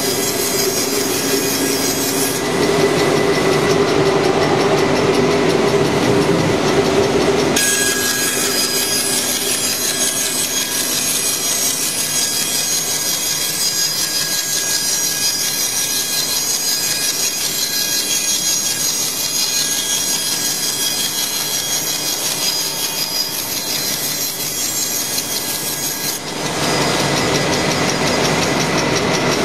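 CNC chair-leg profiling router cutting a wooden chair-leg blank held by vacuum and clamps: continuous spindle and cutting noise. It becomes fuller about two seconds in, turns thinner and higher-pitched about seven seconds in, and fills out again near the end as the cut changes.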